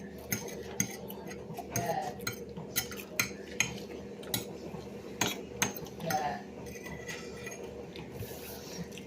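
Cutlery clinking and scraping against a plate as someone eats, a run of sharp clicks over the first six seconds or so that then thins out, over a steady low hum.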